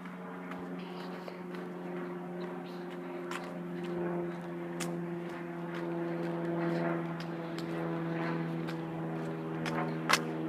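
Steady engine hum with a pitched drone that dips slightly in pitch around the middle, with scattered light clicks and one sharp click near the end.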